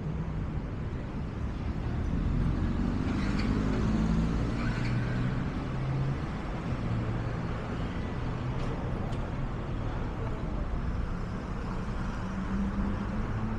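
City road traffic: cars and motorcycles running past in a steady low rumble, which grows louder about two seconds in and eases off after about six seconds.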